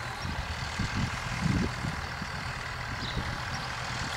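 John Deere tractor's diesel engine running, a low steady rumble.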